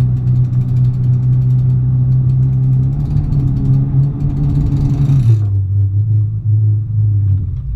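Pickup truck engine running steadily while towing a boat trailer, with a light hiss of tyres over the ground. About five seconds in the hiss stops and the engine note drops lower as the truck eases off.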